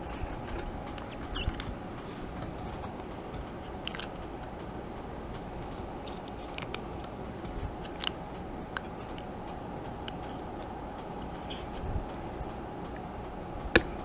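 Plastic fog-fluid bottle and cap being handled and twisted open, giving a few small sharp clicks and taps, spaced seconds apart, over a steady low hum.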